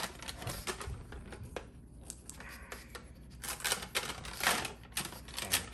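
Plastic clicking and rattling from a hand working at the opening of a plastic jar of individually packed fruit jelly cups, pulling away the seal and rummaging among the cups. The clicks are sparse at first and come thick and fast from about halfway through.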